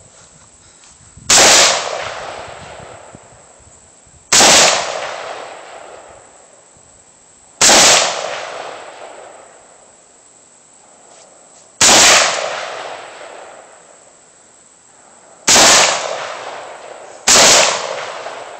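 AR-15 rifle fired six times in slow single shots, a few seconds apart, the last two closer together; each loud crack is followed by an echo that dies away over about two seconds.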